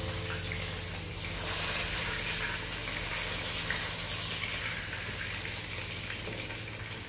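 Hot cooking oil sizzling in a wok with an even hiss as whole fried kuwe (trevally) fish are lifted out on a slotted metal skimmer and left to drain.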